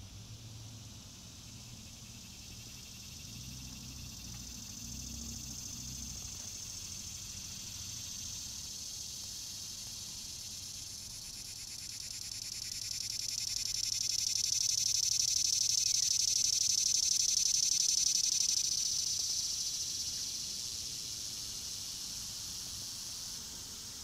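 Cicada singing up close: a shrill, steady buzzing drone that builds over several seconds, is loudest a little past the middle, then eases off but keeps going.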